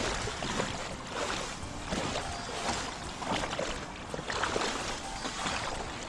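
Shallow stream water splashing and sloshing, with grass rustling, in irregular strokes as a scoop net and its pole are pushed through bankside vegetation to drive fish into the net.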